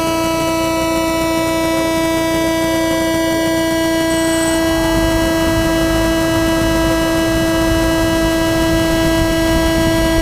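A drone's motors running steadily at idle while it sits in grass, giving one unbroken humming tone with a stack of overtones.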